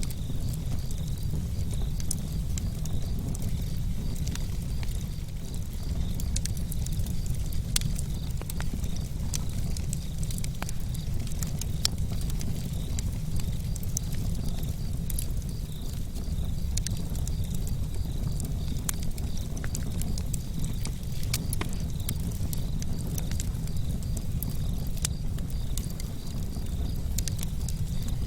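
Wood campfire burning, with frequent short crackles and pops over a steady low rumble.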